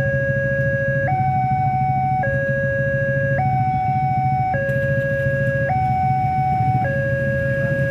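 Railroad level-crossing warning alarm sounding with the barriers down: an electronic two-tone signal switching between a low and a high tone about every second, over a steady low hum.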